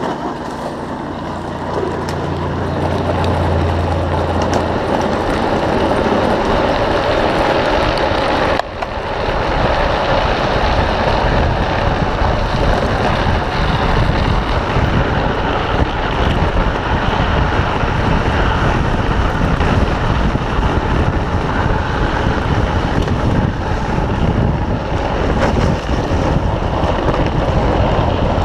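Drift trike's PVC-sleeved rear wheels sliding and scraping on asphalt in a steady hiss, with wind rushing over the microphone. The sound breaks off briefly about eight and a half seconds in, then carries on.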